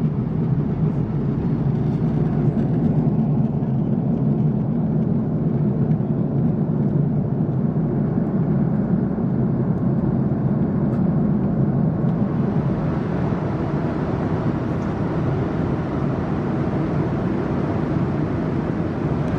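Steady drone of an Airbus A330-200 airliner cabin in cruise: engine and airflow noise. About twelve seconds in it turns brighter and hissier.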